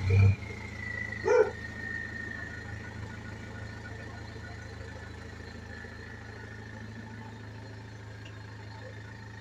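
A dog barks twice in the first second and a half, over the steady low hum of a Land Rover Freelander's engine as the SUV creeps forward and turns at low speed.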